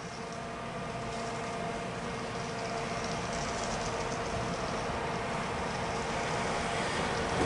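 Greater Anglia Class 720 electric multiple unit approaching along the line, its rumble growing steadily louder, with a steady hum that stops near the end.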